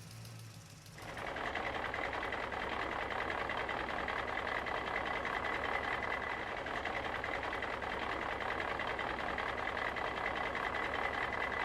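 A steady, fast-pulsing engine-like buzz starts about a second in and keeps running.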